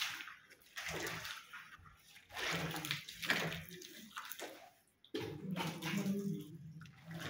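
Wet plaster of Paris slurry poured from a bucket and worked by hand into sisal fibre in a cornice mould: wet splashing and sloshing in several uneven bursts.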